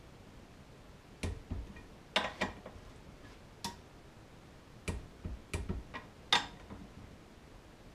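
Sharp metal clicks from a socket wrench on a snowmobile primary clutch's cover bolts, about a dozen at uneven spacing, some in quick pairs, as the bolts are tightened down in a cross pattern.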